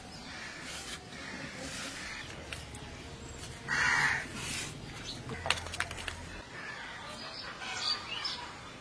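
Small climbing perch being scaled and cut against a metal blade, with faint scraping and a few sharp clicks, while birds call around. A short harsh rasp about four seconds in is the loudest sound.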